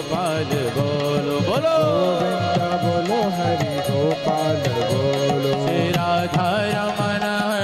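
Indian devotional bhajan music: a gliding melody over a steady, fast drum rhythm, with no words sung.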